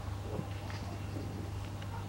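Faint scuffling of two dogs play-wrestling on grass, over a steady low hum.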